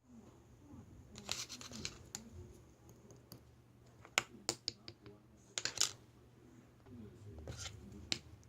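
Hands handling slime and its container: scattered sharp clicks and short scratchy sounds, the loudest about four and six seconds in, with faint voices in the background.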